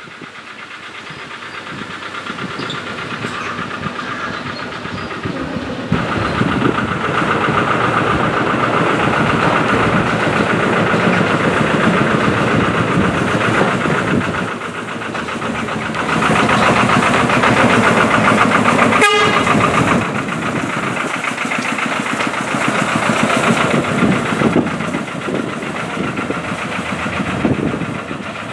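Small 15-inch-gauge diesel shunting locomotive running over the pointwork and rails, its engine note and wheel noise growing louder as it nears, with a single sharp click about two-thirds of the way through.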